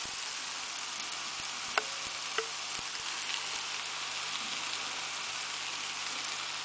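Oyster mushrooms frying in olive oil with onion, garlic and green peppers, a steady sizzle with a couple of sharp pops about two seconds in.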